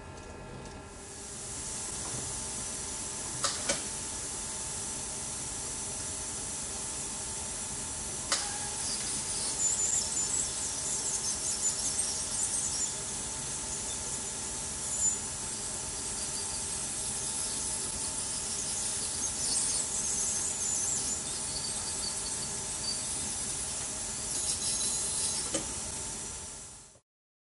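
Piezoelectric ultrasonic irrigation tip running in a resin block's root canal, used to loosen and flush out a broken file fragment: a steady high squealing hiss that starts about a second in and cuts off suddenly near the end, with a few sharp clicks in the first several seconds.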